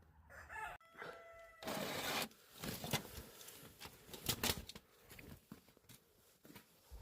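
A rooster crowing once near the start, a held call, followed by a short burst of noise and a few scattered knocks.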